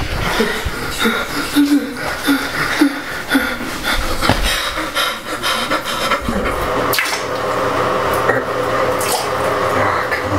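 Short vocal noises without words, then, from about seven seconds in, a steady stream of liquid splashing into a toilet bowl as a man urinates.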